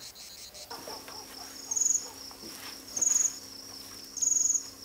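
Insects chirping: a steady high trill, with a louder, higher chirp repeating about every second and a quarter, three times.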